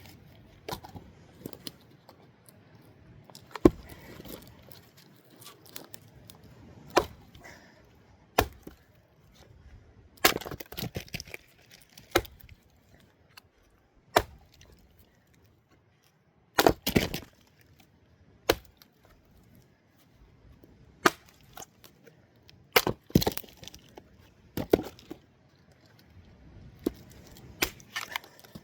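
Axe splitting firewood: sharp blows on the logs every second or two, some followed by a brief crackle as the wood splits apart.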